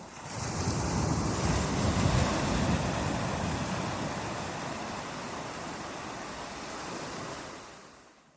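Recorded rain-and-sea ambience: a deep rumbling surge swells in about half a second in, peaks near two seconds and slowly dies down, then the whole track fades out to silence at the very end.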